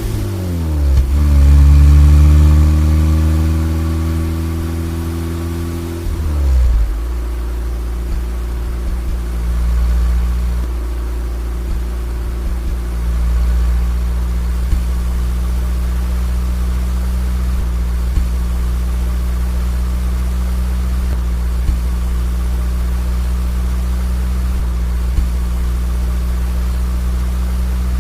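Car engine in motion: the pitch drops just after the start as the revs fall, holds steady, drops again about six seconds in, then settles into a low, steady running hum.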